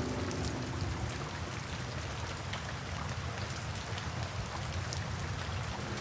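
Steady rain falling, with separate drops ticking sharply through the hiss. A faint music bed fades out in the first second.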